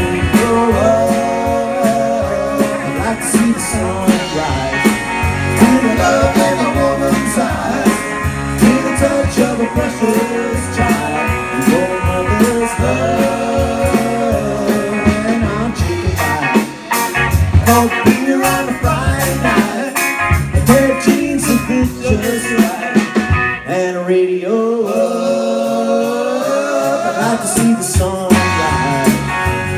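Live band playing a country-rock song on electric guitar, electric bass and drum kit, with vocals. Near the end the bass and drums drop out for a few seconds, then come back in.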